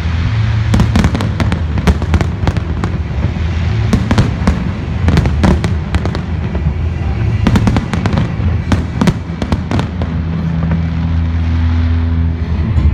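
Large fireworks display: many sharp bangs and crackles in quick succession, thinning out after about ten seconds as steady music becomes clearer underneath.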